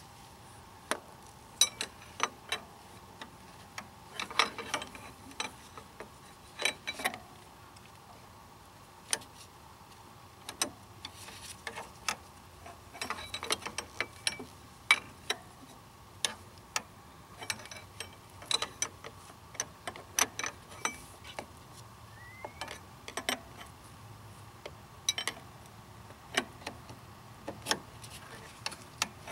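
Hand tools clicking and clinking against metal in a car's engine bay, in irregular single clicks and short clusters.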